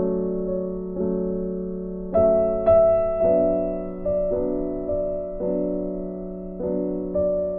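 Background music: slow, gentle keyboard chords, a new chord struck about once a second and left to ring and fade.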